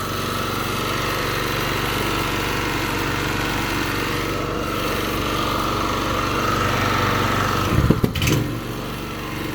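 Small petrol generator's engine running steadily. A few knocks come near the end, and then the engine note shifts.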